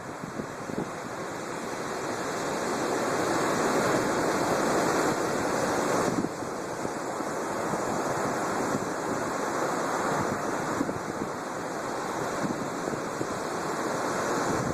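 Storm surf on the Black Sea: heavy waves breaking and washing, with wind. The noise swells over the first few seconds and drops suddenly about six seconds in.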